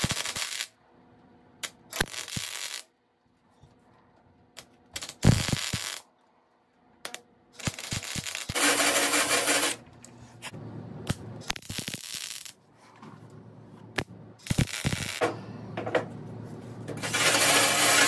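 Welding gun laying short welds on sheet-steel body panel: a series of crackling, sizzling bursts, each about a second long, with short pauses between.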